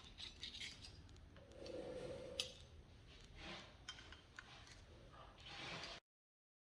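Faint clicks and rubbing of metal hole saw parts being handled and fitted back into the multi-blade holder, with one sharper click near the middle.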